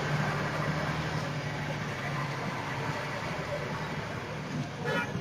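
Street traffic at a busy intersection: a steady low hum of engines and road noise from passing motorcycles and cars, with a brief higher-pitched sound near the end.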